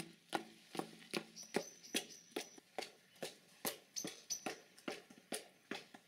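A steady run of sharp taps or knocks, about two and a half a second, with a faint high tone heard over part of it.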